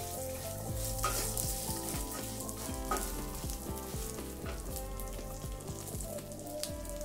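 Nuts, curry leaves and spices sizzling in hot oil in a stainless steel kadai, stirred with a wooden spatula that scrapes and knocks against the pan now and then.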